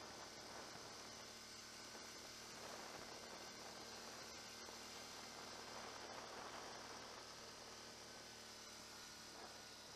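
Near silence: a faint steady hiss with a low electrical-sounding hum.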